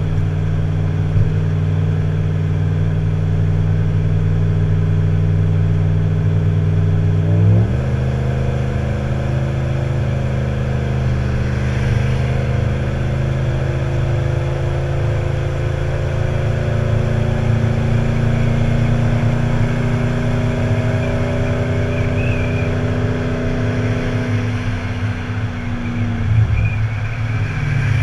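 Tow vehicle's engine running steadily on the road. Its note drops sharply about a quarter of the way in, climbs slowly for several seconds, then holds, and falls away again near the end.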